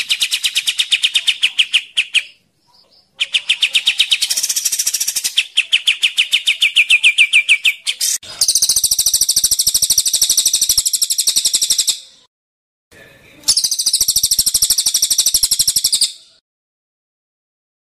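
Cage birds singing, cililin (crested jay) and kapas tembak: fast trilled phrases of a few seconds each, with short breaks. About eight seconds in, the song turns to harsher, buzzing rattles in two long bursts. It stops shortly before the end.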